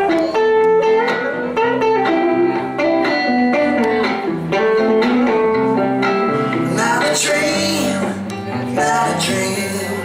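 Two electric guitars playing live, a hollow-body archtop and a second electric, with picked melodic lines and chords. A few notes slide up in pitch in the second half.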